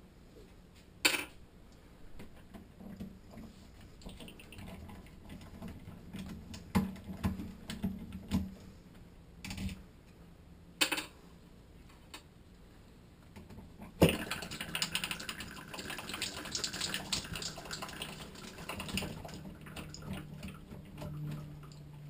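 Phillips screwdriver and small metal and plastic parts clicking and scraping as the screws are backed out of a shower valve body. There are a few sharp separate clicks at first, then a little past halfway a busier stretch of scratchy ticking and rattling.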